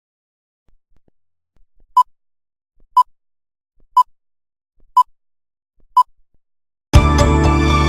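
Five short, identical electronic beeps, evenly spaced one second apart, like a countdown leader at the start of an edited video. About seven seconds in, loud music cuts in abruptly.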